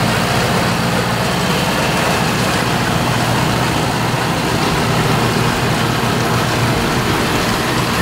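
John Deere tractor engine running steadily at about 1600 rpm, pulling a John Deere round baler whose pickup and bale chamber are running as it gathers hay.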